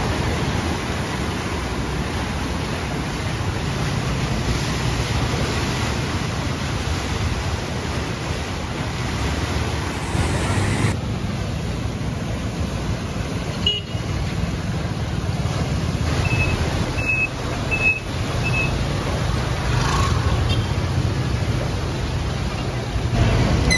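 Steady outdoor rushing noise of traffic on a wet road and the flood-swollen river's fast brown water. Four short, high horn beeps come about two-thirds of the way in.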